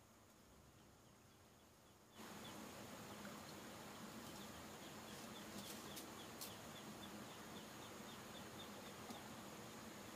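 Quiet rural ambience: nearly silent for about two seconds, then a faint steady hiss with a run of short high chirps, about three a second, and a few sharp clicks.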